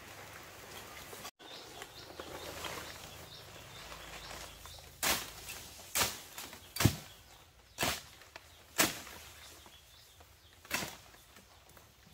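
Rustling, then six sharp strikes, mostly about a second apart, with a longer pause before the last one.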